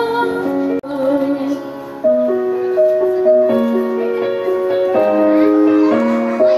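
Slow music with singing and held piano-like notes; the sound cuts out for a moment about a second in.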